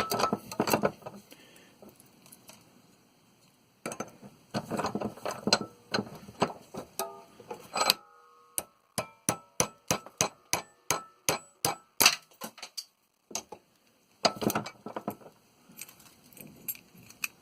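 Metal parts of a water heater pressure relief valve clinking and clattering as it is taken apart, including a steel spring, with a run of about a dozen evenly spaced ringing metal taps in the middle.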